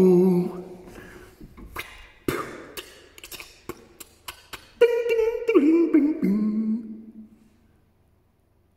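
A man making vocal sound effects, beatbox-style, while miming a game of pinball: a held voiced tone fading out, then a run of sharp clicks and pops, then a wavering hummed tone that slides down and stops about seven seconds in.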